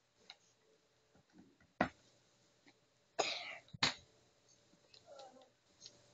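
Mostly quiet, with a few faint short sounds: a sharp click just under two seconds in, then a brief breathy burst a little past three seconds, followed at once by another sharp click.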